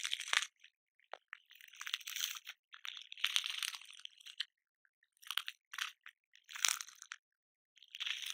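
Cockroach sound effect: short, irregular bursts of high-pitched scratchy noise, a fraction of a second to about a second long, with silent gaps between them.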